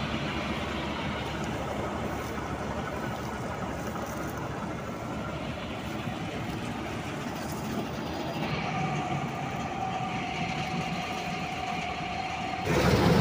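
Combine harvester running while its unloading auger discharges threshed paddy: a steady mechanical rattle and hum. A steady whine joins about two-thirds of the way through, and the sound gets abruptly louder just before the end.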